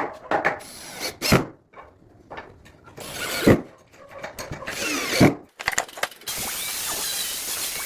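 Woodworking tools at work: three short strokes that each build up and end in a sharp knock, then a steady hiss starting about six seconds in.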